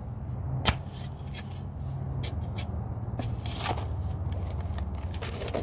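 Narrow steel spade cutting and scraping into wet clay soil: a string of sharp clinks and scrapes, the loudest about two-thirds of a second in, with a steady low hum underneath.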